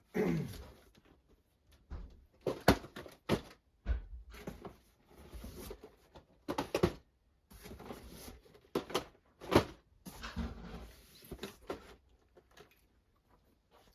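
Boxed model kits and cardboard packaging being handled: irregular knocks, taps and rustling as boxes are moved about, with a short falling whine right at the start.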